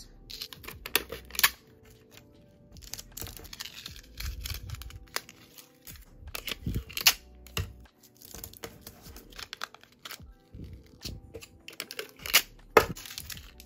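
Handling sounds of card stock and a metal chain necklace: irregular light taps, clicks and rustles as the chain is hooked into slits in a paper display card.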